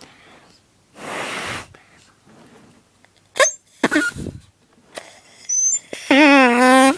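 Homemade drinking-straw reed horn blown by mouth. There is a breathy puff of air about a second in and a few short squeaks, then near the end a loud buzzing honk with a slightly wavering pitch that lasts under a second.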